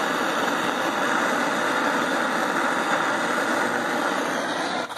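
Steady hiss of a hand-held gas blowtorch flame heating a copper pipe joint for soldering. The sound stops abruptly right at the end.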